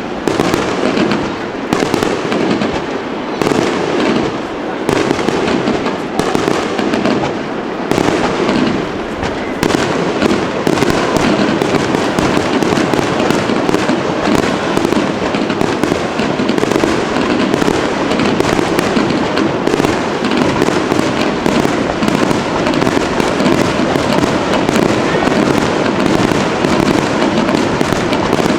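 Fireworks going off in rapid succession: separate bangs and crackles at first, merging about ten seconds in into a dense, unbroken volley.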